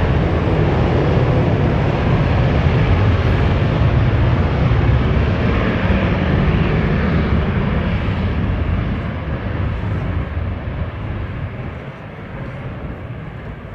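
Military jet's engines at full power on its takeoff run: a loud, steady deep rumble that fades gradually over the last few seconds.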